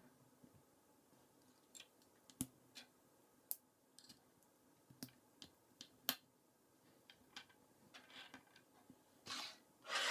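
K'NEX plastic rods and connectors clicking as they are handled and snapped together: a few dozen faint, sharp clicks at irregular spacing, with a short rustling scrape near the end as parts are slid across the table.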